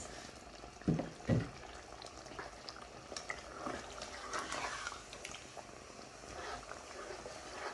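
Tomato masala with oil cooking in a karahi while it is stirred with a spoon, a low bubbling with small scattered clicks and scrapes. Two dull knocks about a second in.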